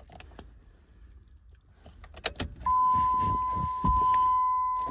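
Keys jangling and clicking as the stuck key is worked in the Jeep Liberty's ignition switch, with a sharper click a little past two seconds in. Then a steady high electronic warning tone from the car sounds, pausing briefly about once a second.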